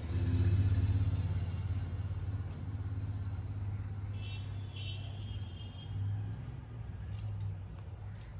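A low, steady mechanical rumble like an engine running, loudest in the first second and a half, with a few faint scissor snips near the end.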